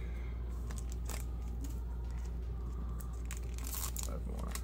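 Trading-card booster pack wrapper being torn open and crinkled by hand: short crinkling tears about a second in and a busier cluster of them near the end, over a steady low electrical hum.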